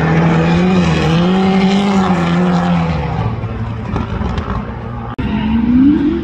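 Highly tuned Subaru WRX STI rally car's engine being driven hard, its note rising and falling as the throttle is worked, over a rushing hiss. The note drops lower about three seconds in, breaks off abruptly just after five seconds, then climbs again.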